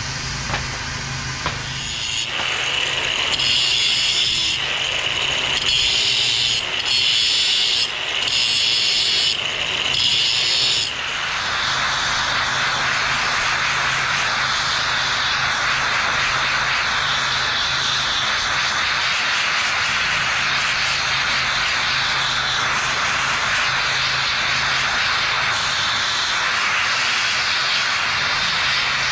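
Multiplaz 3500 water-vapour plasma torch hissing as it heats a cast-iron joint for brazing, with a low steady hum under it. For the first several seconds the hiss is uneven, breaking off and restarting about once a second. From about eleven seconds in it settles into a steady hiss.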